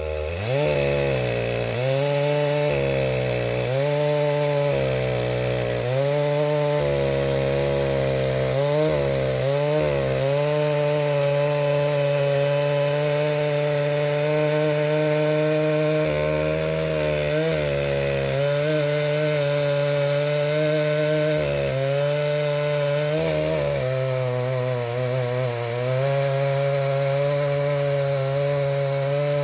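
Stihl 661 chainsaw running near full throttle in a Granberg Alaskan chainsaw mill, ripping lengthwise through a large red oak log. The engine pitch dips and recovers again and again as the cut loads the saw, settling steadier in the second half.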